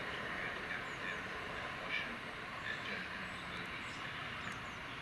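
Birds chirping over the steady running noise of a Class 377 electric train approaching round a curve.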